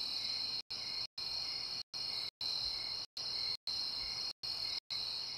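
Crickets trilling in a steady high chorus, chopped by short, complete dropouts to silence about twice a second, so the sound stutters on and off.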